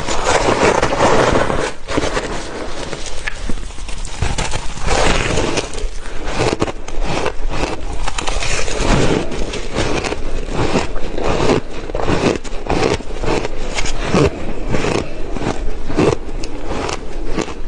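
Close-miked crushed ice: a metal spoon scraping and digging through it in a glass bowl in the first couple of seconds, then a long run of loud, irregular crunching as mouthfuls of the ice are bitten and chewed.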